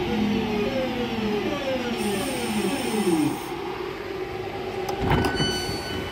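Class 323 electric multiple unit braking to a stop, its traction motors whining down in a series of falling tones. About five seconds in, a knock as the passenger doors release and open, followed by a steady high tone.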